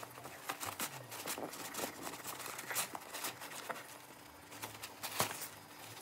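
A Yorkshire terrier rummaging inside a fabric pet carrier: irregular scratching and rustling with sharp clicks, louder one about five seconds in.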